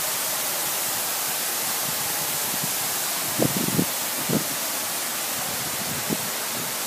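Steady rushing hiss, with a few soft low bumps about three and a half and four and a half seconds in.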